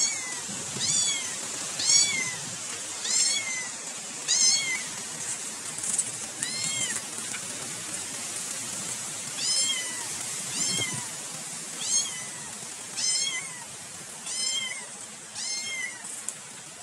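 A kitten meowing over and over in short, high-pitched mews, about one a second, with a pause of a few seconds midway.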